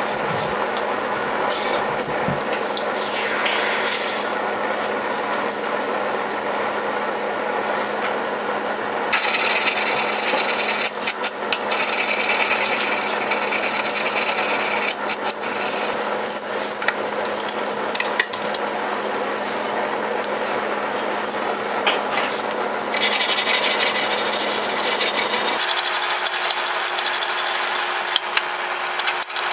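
Hand file scraping back and forth over a steel awl blank held under a filing guide, in steady repeated strokes.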